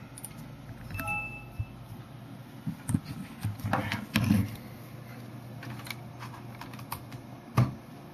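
Scattered clicks and taps of computer keys and mouse buttons at irregular intervals, the sharpest near the end, with a brief high tone about a second in.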